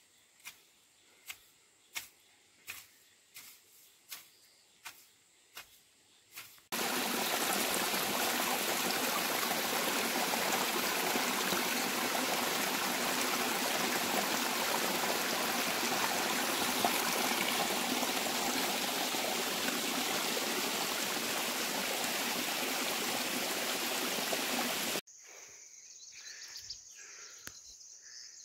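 A hand hoe striking wet, muddy soil, a sharp chop about every two-thirds of a second. It gives way abruptly to a mountain stream rushing over rocks, a loud, even noise. Near the end this cuts to much quieter outdoor background with a steady high hiss.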